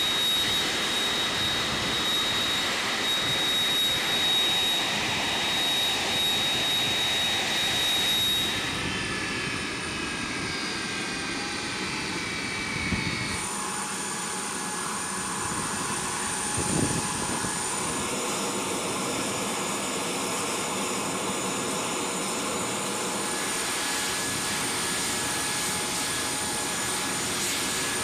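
Turbofan jet engines of a C-5M Super Galaxy running at ground idle: a steady rushing roar with high-pitched turbine whine, its pitch set changing abruptly twice as the shots change. Two brief thuds break through in the middle.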